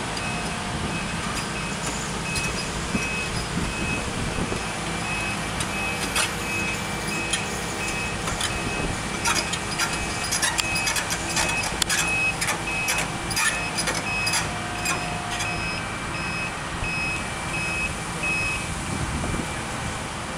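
Reversing alarm of heavy construction equipment beeping steadily, about two beeps a second, over a running engine. It stops near the end. A run of sharp metallic clanks comes through the middle.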